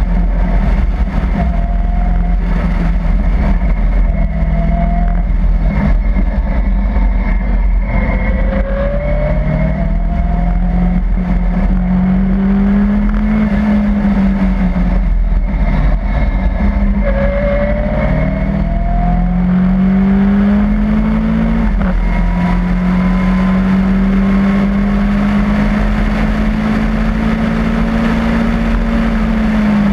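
Mazda RX-7 rotary engine in a Caterham Seven pulling hard, its note climbing and dropping with each gear change, then holding steady for several seconds before falling away near the end. Heavy wind and road noise from the open car runs underneath.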